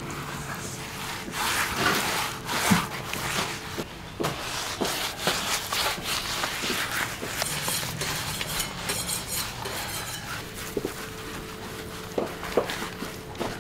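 Stiff bristle brush scrubbing a coarse granular seasoning into a whole pork carcass: repeated rough scraping strokes with a few sharper scratches.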